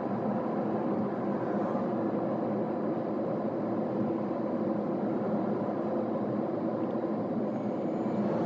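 Steady road and engine noise of a car on the move, heard from inside the car.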